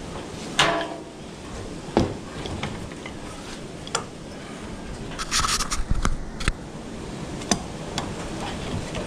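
Metal tools clinking and rattling as a hand picks through a bin of tools, then an adjustable wrench knocking and clicking against a radiator's fittings, with a short cluster of clatter about halfway through.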